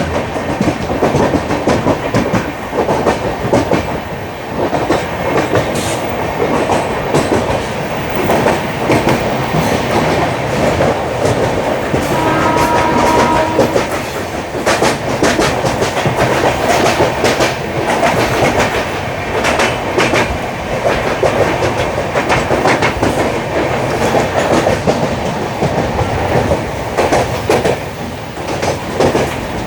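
Running sound of a train of LHB passenger coaches on the move: a steady rumble of wheels on rail with rapid, irregular clicks as the wheels pass rail joints. A brief high tone sounds about twelve seconds in.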